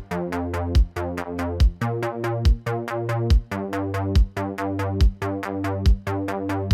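Electronic background music with a steady drum-machine beat and sustained synthesizer notes.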